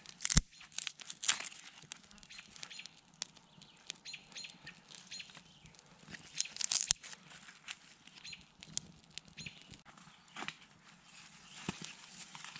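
Small twig fire crackling with irregular sharp snaps as dry sticks and a wood shaving are laid on it by hand. Faint bird chirps behind.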